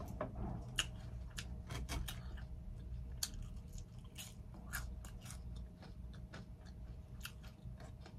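A person chewing a mouthful of food close to the microphone, with irregular wet clicks and light crunches several times a second, over a low steady hum.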